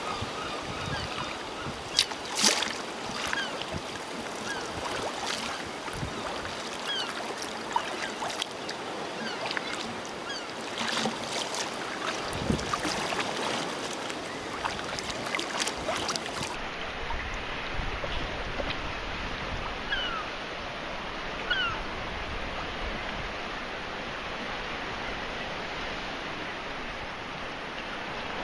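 Sea water lapping and splashing around a sea kayak, with sharp splashes now and then from paddle strokes. Faint short calls of seabirds come through above the water now and then.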